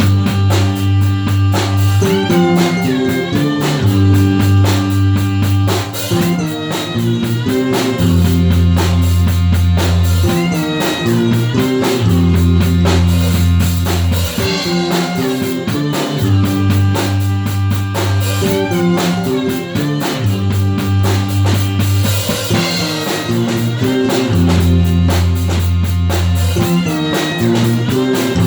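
Blues-style music with electric guitar, bass and a drum kit playing a steady beat.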